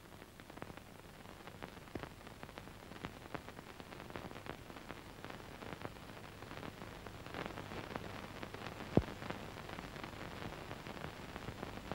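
Faint hiss and crackle of an old film soundtrack, with many small scattered clicks, a louder click about nine seconds in, and a low hum underneath.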